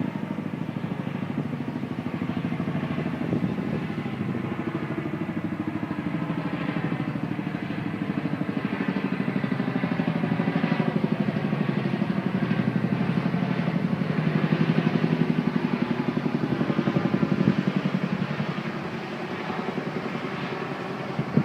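Boeing CH-47 Chinook tandem-rotor helicopter flying past, its rotor blades beating in a rapid, even thudding. The sound slowly builds to its loudest about two-thirds of the way through, then drops away near the end.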